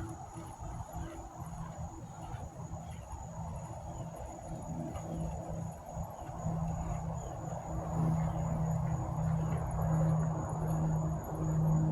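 Crickets chirring steadily at a high pitch. A low pulsing hum comes in and grows louder from about halfway through.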